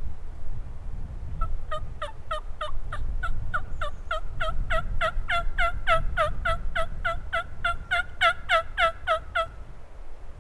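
A long series of turkey yelps, about three evenly spaced notes a second for some eight seconds, starting a second and a half in. Wind rumbles on the microphone underneath.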